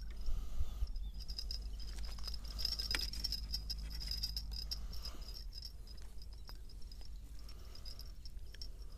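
Low wind rumble on an action camera's microphone, under a steady, faintly pulsing high-pitched chirring, with a few small clicks from handling the fishing rod and tackle.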